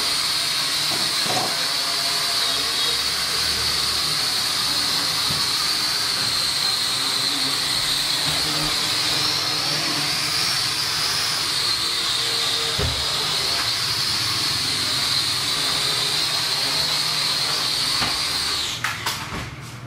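M57C toy quadcopter's motors and propellers whining steadily at a high pitch as it flies, the pitch wavering slightly about halfway through. Near the end the motors wind down with a few clicks as it sets down on the floor.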